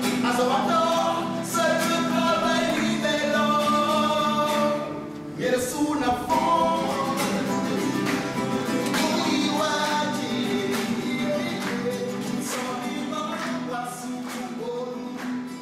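Live song: a man's voice singing to acoustic guitar accompaniment, with a short drop in level about five seconds in before the singing resumes.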